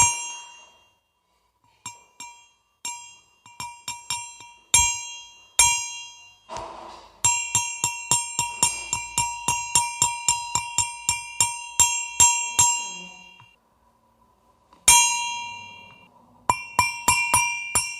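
A bell rung repeatedly, each strike ringing briefly. At first the strikes are spaced, then a quick run of about four a second follows, a pause, a single strike, and another quick run near the end.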